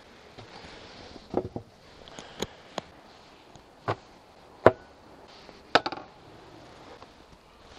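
Wooden beehive parts and beekeeping tools being set down: about seven sharp wooden knocks and clatters spread over several seconds, the loudest a little past halfway.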